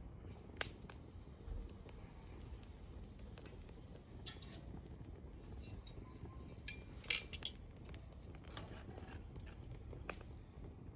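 Hardwood fire in a metal fire pit: a handful of sharp clicks and clinks at irregular moments over a low steady rumble, the loudest about half a second in and a pair about seven seconds in.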